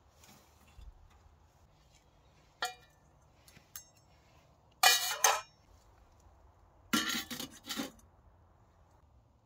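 Metal camp cookware clinking and clattering as it is handled: one sharp ringing clink, then two louder bursts of clattering in the second half.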